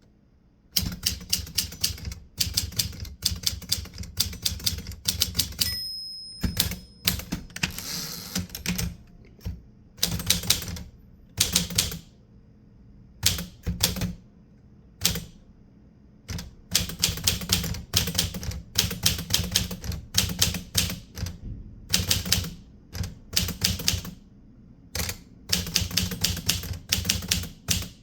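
Typewriter keys striking in quick runs of typing with short pauses. About six seconds in, a bell rings once, followed by the carriage being returned.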